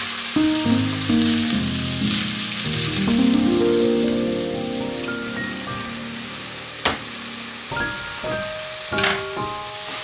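Food frying with a steady sizzle under soft background music, with a sharp click about seven seconds in and another near the end.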